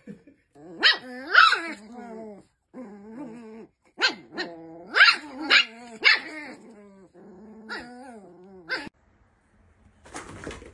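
Small dogs barking and growling at each other, a string of sharp yaps among drawn-out growly whines, stopping about nine seconds in.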